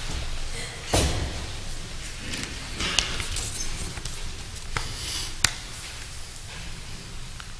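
Sheets of paper rustling as sermon notes are leafed through on a pulpit, with a few sharp knocks and clicks in between, the loudest about a second in and around five and a half seconds in.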